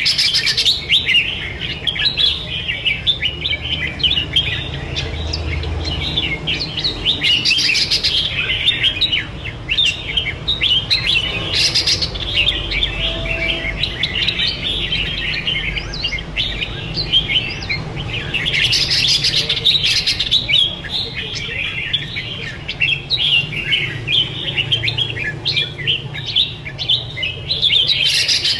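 Two caged red-whiskered bulbuls singing against each other in competitive song, an unbroken stream of quick chirpy phrases with louder outbursts every few seconds.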